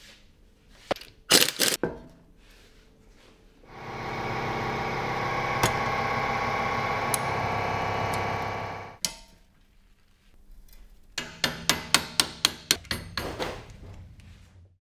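Mechanic's tools working on a car's brake caliper bolts: a few sharp metal clanks, then a steady mechanical whirring for about five seconds, then a quick run of about a dozen clicks like a wrench being ratcheted.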